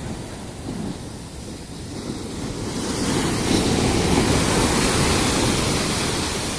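Ocean surf: a wave swells and breaks about two to three seconds in, then washes back down, with wind rumbling on the microphone.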